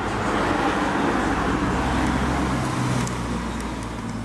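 A motor vehicle passing by: engine hum and road noise swell over about a second, hold, then fade after about three seconds.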